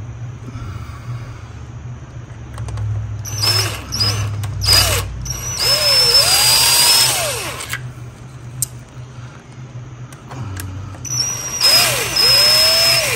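Cordless power driver spinning out the Torx bolts of a Ford 5R55S transmission solenoid pack, in several short trigger bursts, then a longer run of about two seconds. Its motor pitch rises and falls with each pull and release of the trigger. After a pause another run of about two seconds follows near the end.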